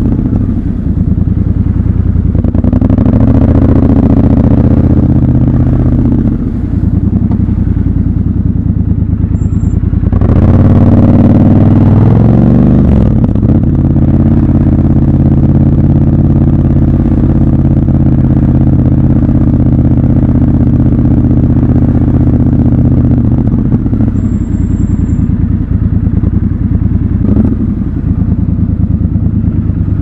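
Triumph Scrambler 1200 XC's 1200 cc parallel-twin engine running at low throttle in slow traffic. About ten seconds in it revs up, rising in pitch, and drops back about three seconds later to steady running.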